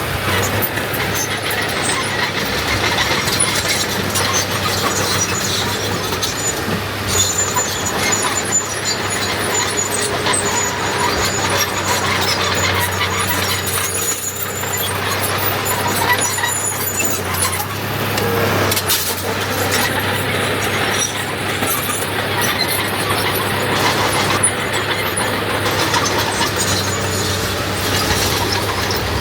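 Heavy diesel earth-moving machinery running steadily, with a thin high-pitched squeal for a few seconds partway through.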